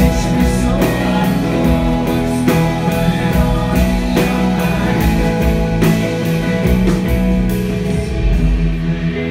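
Live rock band playing: guitar, electric bass and drum kit with a steady beat. Near the end the drums drop away, leaving sustained guitar and bass.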